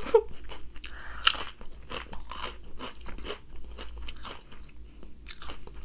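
A person chewing crunchy food close to the microphone: irregular crisp crunches, about three or four a second.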